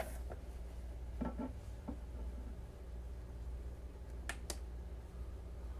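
Balisong butterfly knife being handled: a few soft knocks, then two quick sharp clicks about four seconds in, over a steady low hum.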